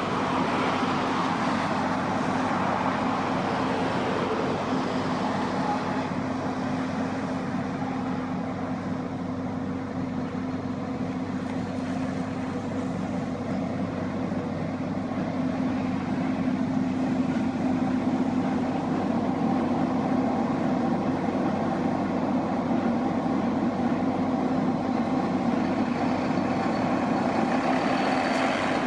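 A heavy vehicle's diesel engine running steadily, a constant low hum over engine noise with no change in speed.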